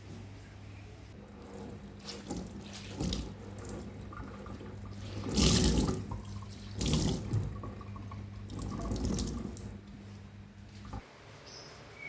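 Water running from a tap into a kitchen sink, rising into loud gushes about halfway through and again twice after. A steady low hum underneath cuts off near the end.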